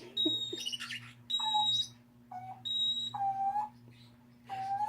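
African grey parrot mimicking an electronic beep: three high, steady beeps about half a second each, alternating with short lower whistles.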